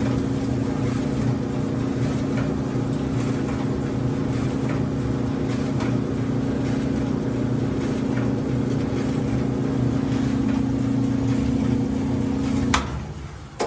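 GE clothes dryer running on test after a new drum belt was fitted: the motor turns the drum with a steady hum, the belt on and running smoothly. It cuts off with a click near the end.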